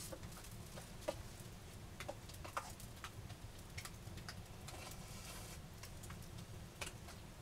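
Campfire of dead laurel brush crackling faintly, with scattered irregular snaps and pops. A brief soft hiss rises about five seconds in.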